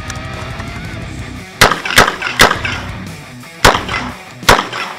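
Five revolver shots from a Ruger GP100 Match Champion. Three come quickly about a second and a half in, then a pause and two more spaced a little further apart.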